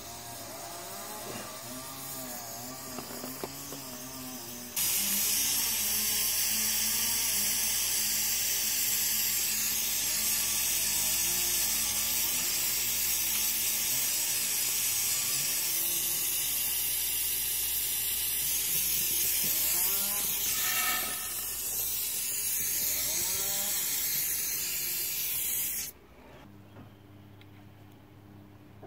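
Gas soldering torch flame hissing loudly, turned up strong against the wind while heating copper pipe for tin soldering. The hiss starts abruptly about five seconds in and cuts off a few seconds before the end.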